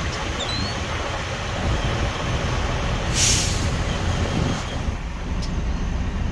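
Steady low outdoor rumble, with a short sharp hiss about three seconds in.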